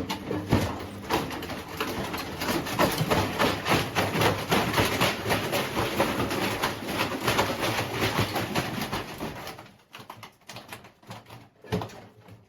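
Washing machine rattling and clattering hard with dense irregular knocking for about ten seconds. It then dies down to a few scattered knocks near the end.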